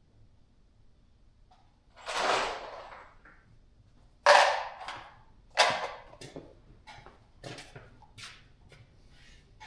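Metal engine parts and tools being handled during a small-block Chevy teardown: a scrape about two seconds in, then two sharp clanks about a second apart, followed by lighter clicks and taps.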